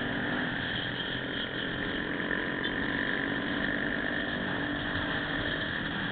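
Motorcycle engine running steadily at cruising speed, mixed with constant wind and road noise on the camera's microphone.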